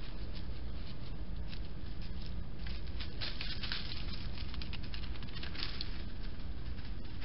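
Steady low rumble and hiss from a security camera's microphone, with a dense scatter of faint crackling ticks that thickens about three seconds in and thins again near the end.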